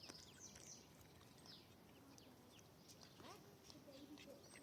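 Faint, scattered chirps of small birds, with a few soft lower calls about three seconds in.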